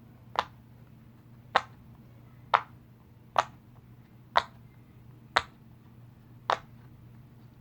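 Bubbles of a silicone pop-it fidget toy pressed through one after another: sharp pops, about one a second, some eight in all.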